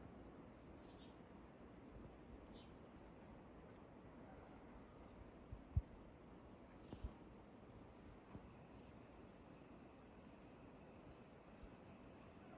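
Faint, steady high-pitched trill of insects, likely crickets, with a few faint bird chirps in the first few seconds. Two soft low thumps near the middle are the loudest sounds.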